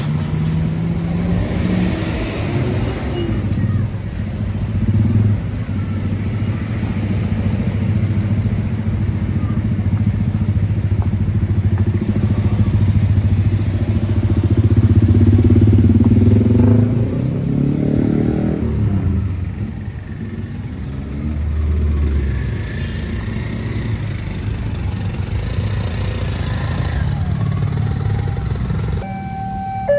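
Road traffic, mainly motorcycles and cars, passing a railway level crossing, with engines running and rising and falling in pitch. Near the end the crossing's electronic warning alarm starts, stepping between tones.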